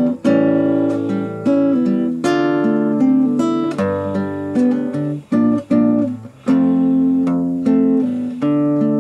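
Background music: acoustic guitar, plucked and strummed chords that change about once a second.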